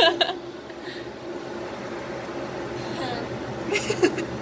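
Steady low mechanical hum, with brief voices a little before the end.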